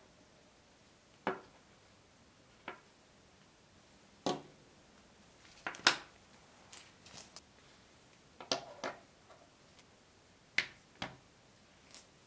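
Small hard plastic and metal action-camera parts (DJI Action 2 modules, mount and adapter) being set down and handled on a wooden tabletop: irregular sharp clicks and knocks, spaced a second or two apart, with quicker clusters in the middle.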